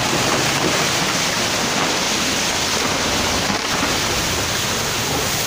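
Steady, loud rush of muddy floodwater and earth pouring down a hillside in a landslide.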